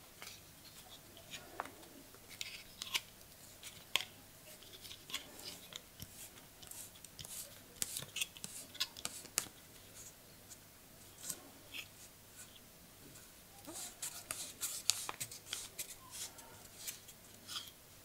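Wine cork being twisted off the steel corkscrew of an old Soviet folding multi-tool knife: a run of small, irregular creaks, scrapes and clicks of cork and metal, busiest a few seconds before the end.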